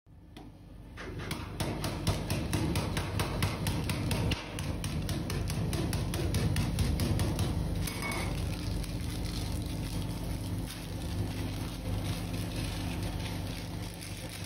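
A quick run of crackles and clicks, about five a second, over a steady low hum: an Oreo cookie packet being crushed and pressed against a steel cold plate, then torn open.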